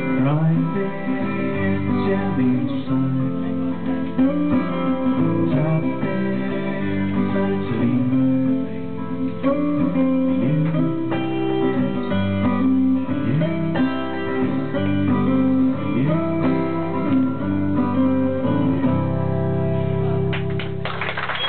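Live solo acoustic guitar, strummed and picked, with a man singing over it through a small PA. Applause and a whistle break out right at the end.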